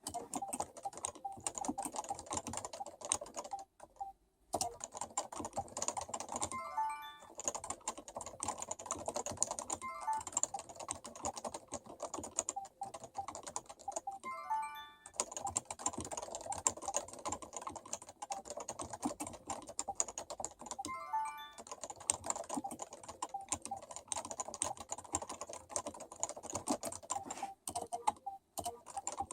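Fast, continuous typing on a Topre Realforce keyboard with electrostatic capacitive rubber-dome switches at 30 g weighting: a dense run of key strokes, pausing briefly about four seconds in.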